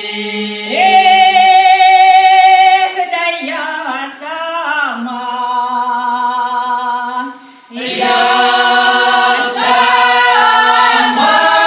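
Russian folk ensemble singing a folk song a cappella. About a second in, one high voice holds a long note. Wavering lines and sustained group chords follow, and after a brief break near seven and a half seconds the full choir resumes.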